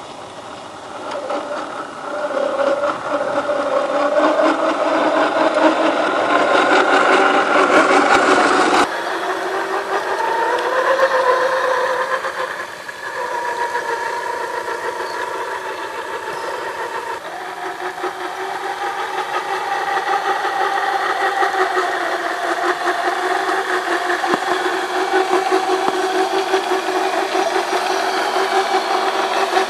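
RC4WD Trail Finder 2 scale crawler's electric motor and gear transmission whining as it crawls over dirt, with a rattle from the drivetrain. It holds several steady tones whose pitch changes abruptly about 9 and 17 seconds in.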